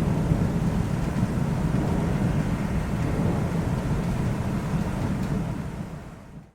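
Deep rolling rumble of distant thunder under a soft hiss of rain, fading away in the last second.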